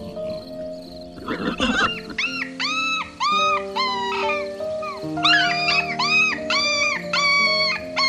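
Background music with an animal calling over it: after a short rough sound, about ten high-pitched, arching calls of about half a second each follow one another from about two seconds in.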